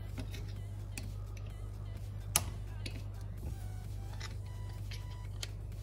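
Small metal clicks and scrapes as a steel wrist-pin retaining clip is worked into its groove in an LS piston with a screwdriver, with one sharp click about two and a half seconds in as the clip snaps home, over a steady low hum.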